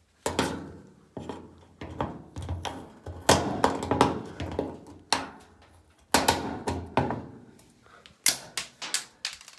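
Scissors cutting and prying at an old dryer's plastic control switch: a run of sharp clicks, snaps and knocks, in clusters throughout.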